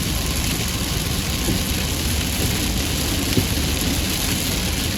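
Steady rumble and hiss of a car driving in heavy rain, with one brief knock a little past halfway.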